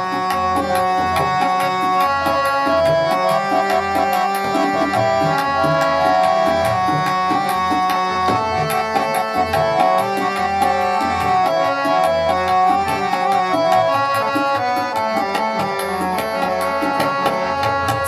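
Instrumental interlude of Sikh shabad kirtan: two Crown Flute harmoniums play a held-note melody over a quick, steady stream of tabla strokes.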